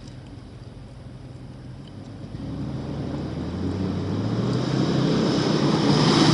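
Jeep Wrangler engine running low and steady, then about two seconds in revving up and pulling harder, growing steadily louder, with a rising hiss over it.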